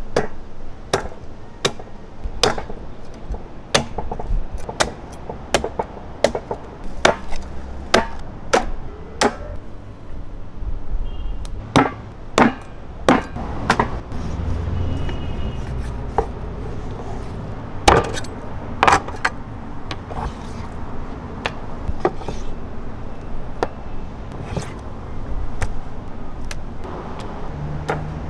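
A blade chopping raw meat on a wooden cutting board: a run of sharp strikes, fairly regular at about one and a half a second at first, then more scattered with short pauses.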